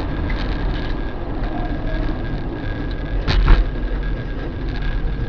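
Steady road and engine noise inside a car at highway speed, picked up by a dashcam. About three and a half seconds in comes one sharp bang as a crash ahead throws dust and debris across the lanes.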